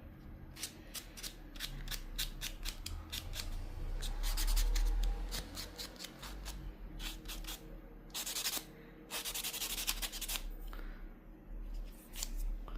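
A nail file rasping against a fingernail in quick short strokes, with two longer passes about eight and nine seconds in.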